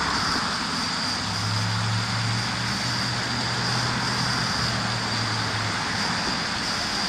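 Steady outdoor hiss with a thin, steady high tone over it. A low, steady hum comes in about a second in and stops near six seconds.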